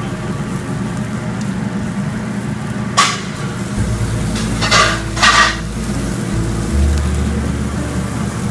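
Raw swordfish steak laid on a hot char-grill, sizzling in short bursts about three seconds in and again around five seconds as the flames flare, over a steady background hum.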